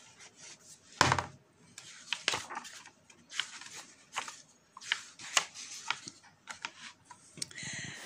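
Hardcover picture book being opened and leafed through: a knock about a second in as the cover comes down on the table, then paper rustling and small taps as the pages are turned, and a longer swish of a page near the end.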